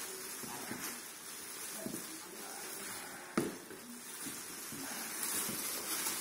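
Clear cellophane basket wrap crinkling and rustling as it is pulled and torn open by hand, with one sharp knock about three and a half seconds in.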